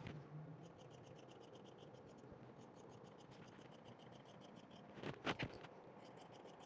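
Fabric scissors cutting through cloth along a marked line, a faint run of quick, even snips. A little after five seconds in there are two short, louder sounds.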